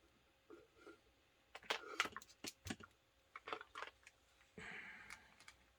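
Scattered light clicks and taps of BNC connectors and cable being handled and fitted together, with a short scrape near the end.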